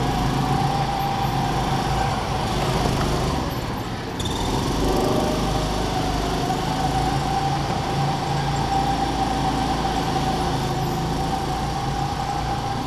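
Go-kart engine running at speed over a rumble of wheels on the track; its steady note drops away about four seconds in, as if easing off for a corner, then picks up again and holds.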